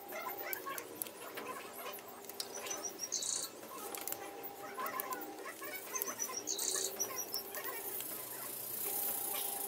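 Light metallic clicks and scrapes of a hex key and socket adapter being turned by hand in a transfer-case oil plug as it is unscrewed. Twice, a short run of high chirps, like a small bird, sounds over it.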